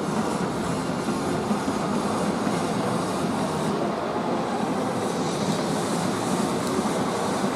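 Steady, even rumble of background noise with no distinct events.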